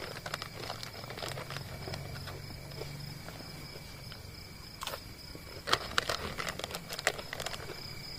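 Crickets trilling steadily in the night forest. Over them come soft rustling and sharp clicks of a packet and gear being handled, most of them from about five seconds in.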